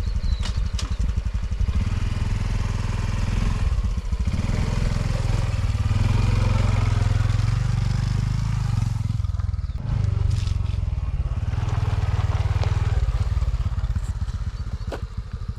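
Honda CT125's single-cylinder four-stroke engine running as the bike is ridden, its note dipping briefly about four seconds in and again about ten seconds in.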